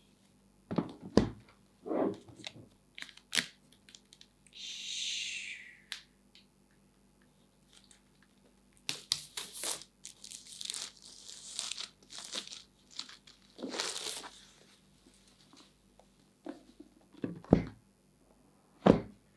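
Wrapping being torn and peeled off a cardboard MacBook Air retail box: one long tear about five seconds in, then more tearing and crinkling from about nine to fifteen seconds, among taps and knocks of the box being handled and set down.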